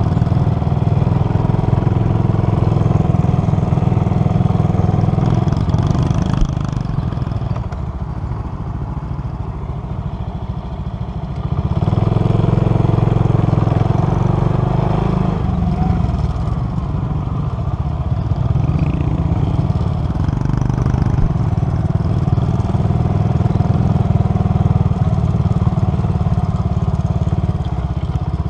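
Motorcycle engine running while riding, easing off for a few seconds about a quarter of the way in and pulling harder again from a little before halfway.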